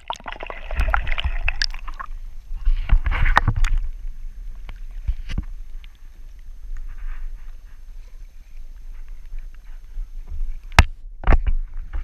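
Kayak paddle strokes splashing in lake water: two louder strokes in the first four seconds, then quieter water sounds, over a steady low rumble. A sharp click comes near the end.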